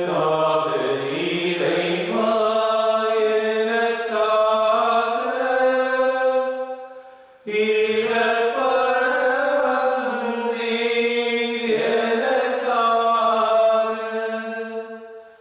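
Slow, chant-like hymn singing in two long phrases of about seven seconds each, with a brief pause about halfway through and a fade near the end.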